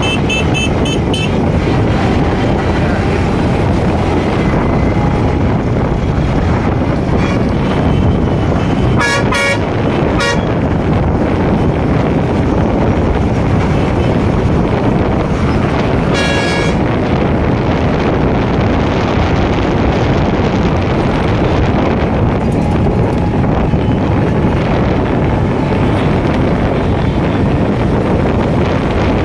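Steady road traffic noise of trucks driving past, with vehicle horns tooting: a quick run of beeps at the start, two short toots about nine and ten seconds in, and another toot around sixteen seconds in.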